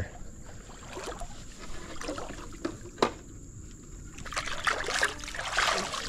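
Creek water trickling and splashing, with scattered small clicks and knocks and one sharp knock about three seconds in; the water noise grows louder near the end.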